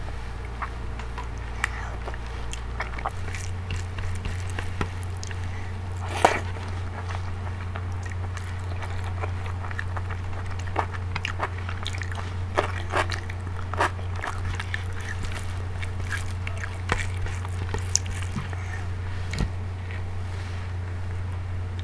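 Close-miked eating sounds: chewing and biting with wet mouth clicks, and fingers squishing rice mixed with dal. The clicks are scattered, the sharpest about six seconds in, over a steady low hum.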